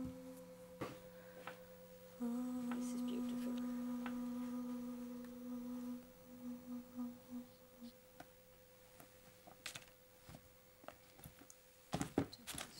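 A voice humming a long steady note at one pitch, breaking into four short hummed notes about six seconds in. Later come small clicks and, near the end, a few sharp knocks as the drum frame is handled.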